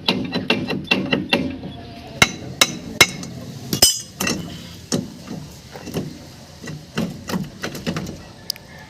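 A run of hammer blows, quick at first at about three a second, then slower and more spaced.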